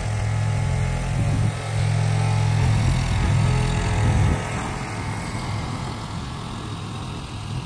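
Small single-cylinder-class riding lawn tractor engine running steadily as the tractor drives down a trailer ramp with a loaded front-end loader bucket. It gets quieter about four seconds in as it moves away.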